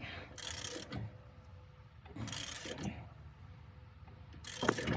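Hand ratchet wrench clicking in three short strokes, turning a lug nut over washers to pull a new wheel stud through the hub.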